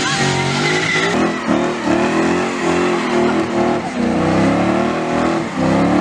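Car engine revving up and down again and again over a loud hiss of spinning tires, with a tire squeal near the start: a burnout.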